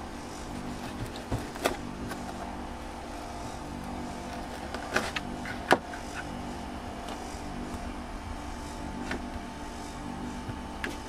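A bread knife and loaf knocking against a plastic cutting board as the loaf is cut and the knife is put down: a few sharp knocks, the loudest a little past halfway. Under them runs a steady mechanical hum.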